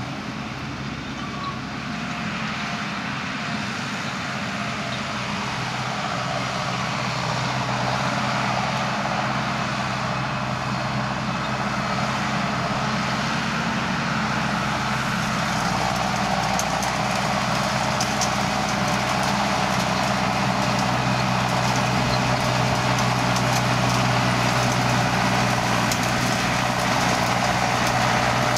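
Diesel tractor engine running steadily under load, growing gradually louder as it comes closer. Faint clicking in the second half.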